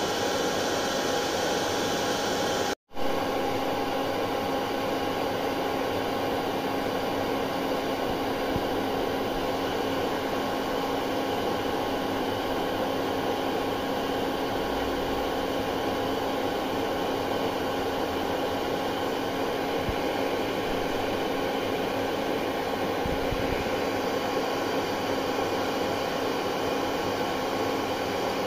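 Hair dryer running steadily: a continuous rush of air over a motor hum. It cuts out for a split second about three seconds in, then carries on unchanged.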